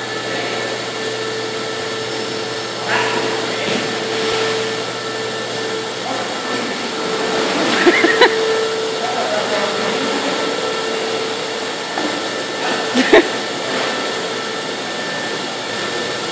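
Steady mechanical drone of indoor pool equipment, with a faint steady hum. Two brief louder sounds stand out, about eight and thirteen seconds in.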